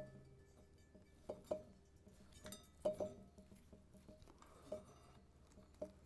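Faint, scattered clicks and light clinks from electrical wires being handled, as the blue wires of a ceiling fan remote receiver and the fan are twisted together and a plastic wire nut is fitted.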